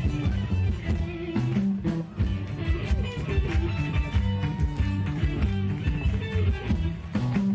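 Live rock band playing, with a guitar line over bass and drums.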